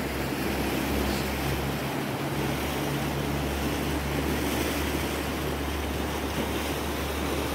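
Mountain river rushing, a steady hiss of fast-running water.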